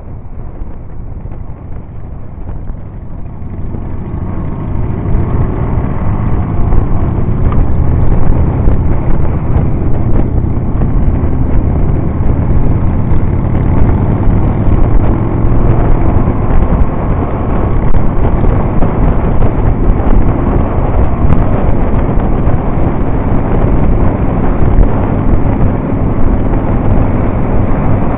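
Motorcycle engine running at road speed under heavy wind and road noise, recorded from the moving bike. It gets louder about four seconds in and then runs steadily.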